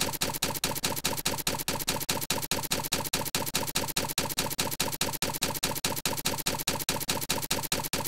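Typewriter keystroke sound effect repeating rapidly without a break, about ten clicks a second, one click triggered for each character as it is typed, spaces included.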